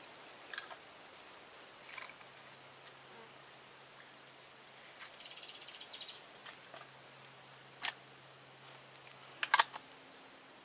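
Faint outdoor background in dense undergrowth, with a short buzz like a passing insect about five to six seconds in, and a handful of sharp clicks, the loudest two close together near the end.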